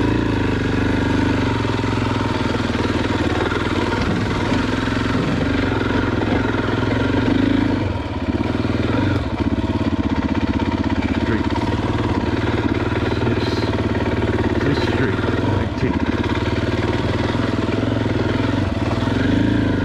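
Single-cylinder four-stroke engine of a KTM EXC 500 enduro dirt bike running steadily, with a brief dip in loudness about eight seconds in.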